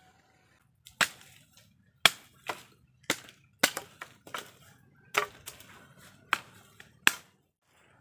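Machete chopping dry branches: about ten sharp, separate strikes at an uneven pace, starting about a second in.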